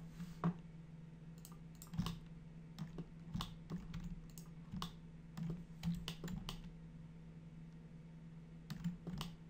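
Computer keyboard keys and mouse buttons clicking at irregular intervals, sometimes in quick runs of two or three, over a steady low hum.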